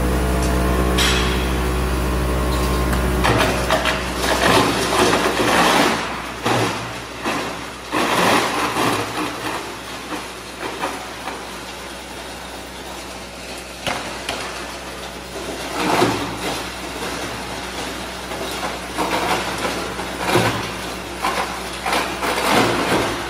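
Plastic pipe crusher chopping 110 mm PPR pipe. The machine hums steadily for the first few seconds, then loud, irregular crunching and cracking bursts start as the rotor blades bite into the pipe.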